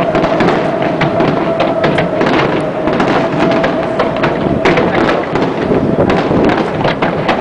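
Fireworks display: a dense, continuous barrage of shell bursts and crackling. A steady tone runs beneath it and fades out about four and a half seconds in.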